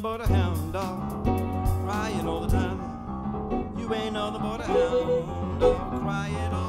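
Piano playing a rock-and-roll number over a live-looped backing with a steady bass line, with wordless vocal sounds over it at times.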